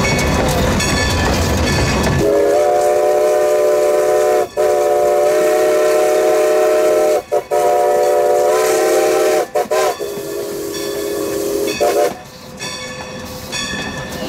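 Steam whistle of 2-10-0 decapod locomotive No. 90, sounding a chord of several notes in a series of blasts: two long ones, a quick short toot, then long blasts that end about twelve seconds in. Before and after it, the locomotive's running noise.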